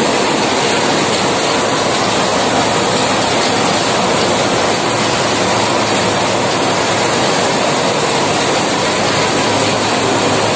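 Grain mill machinery running: a loud, steady mechanical din with a low hum underneath.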